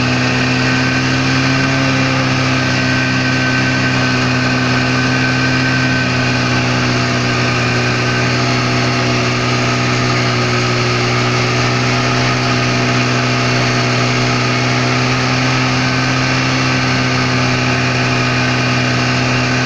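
Snowmobile engine running at a steady cruising speed, heard from the driver's seat, its pitch holding level with no revving up or down.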